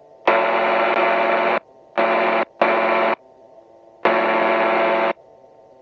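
Gyroplane engine and wind noise heard through the headset intercom, cutting in loudly and dropping out abruptly four times as the intercom opens and closes. Between the bursts the running engine is a faint steady hum.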